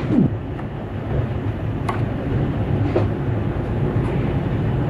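Steady low mechanical hum, with a few faint ticks about a second apart.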